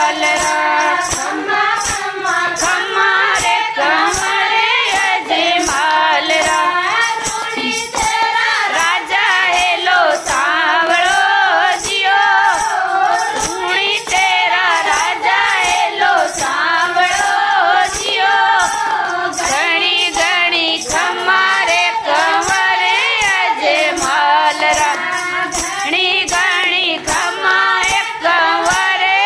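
Women singing a Marwari devotional bhajan together, unaccompanied by instruments, with steady hand-clapping keeping the beat.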